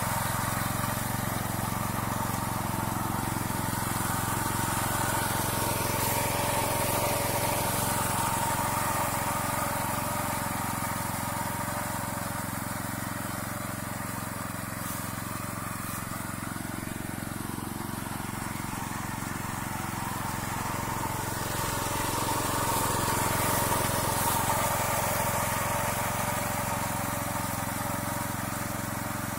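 Small engine of a walk-behind paddy reaper running steadily as it cuts through standing rice. The sound eases off a little in the middle and swells again later.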